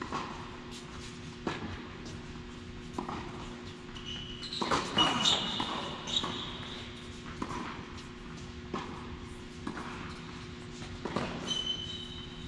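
Tennis ball hit back and forth in a rally: sharp pops of racket strikes and bounces about every one to one and a half seconds. Short sneaker squeaks on the court come around the middle and again near the end.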